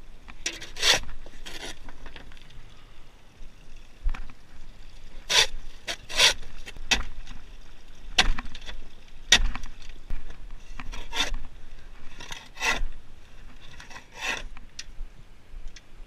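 Scoop shovel scraping across the floor of a dump truck bed, scooping out manure and bedding that did not slide out when the bed was tipped. About ten separate scraping strokes, spaced unevenly a second or so apart.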